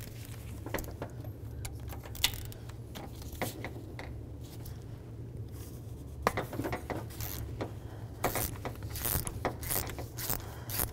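Ratchet with a 19 mm socket unscrewing a coolant temperature sensor from an engine block. A few scattered clicks and taps come first, then from about six seconds in the ratchet pawl clicks in a quick, steady run as the sensor is backed out.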